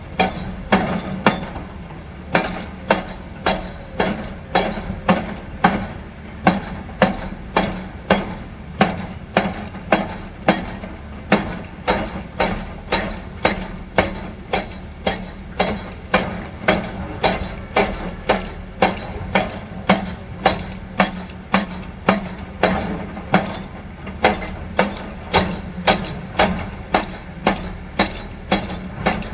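Repeated hammering impacts, about two a second and very regular, over a steady low hum.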